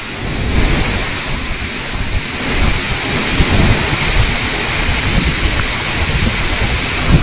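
Wind rushing over choppy reservoir water in flood and buffeting the microphone: a steady loud noise with gusty low rumbles.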